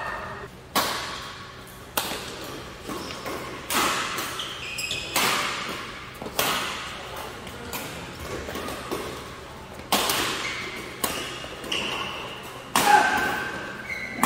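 Badminton rackets striking a shuttlecock in a fast doubles rally: a dozen or so sharp hits about every second or so, each ringing briefly in the hall. Short sneaker squeaks on the court floor come between the hits.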